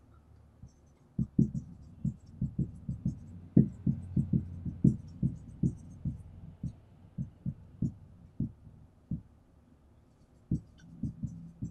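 Marker writing on a whiteboard: a run of irregular soft knocks as each stroke presses on the board, with faint scratchy ticks, pausing briefly near the end.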